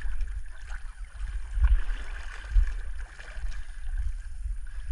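Water sloshing and lapping against a small boat's hull, with a steady low wind rumble on the microphone and a couple of dull bumps.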